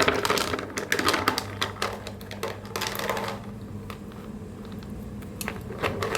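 Hard pieces of homemade jaggery toffee clicking and clattering as they are handled, in quick irregular taps, over a faint low steady hum.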